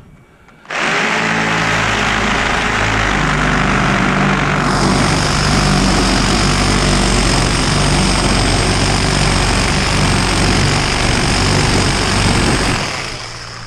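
Electric power tool running for about twelve seconds while cutting through the copper and aluminum ends of an air-conditioner radiator coil. It has a steady high whine, and a second, higher note joins about five seconds in.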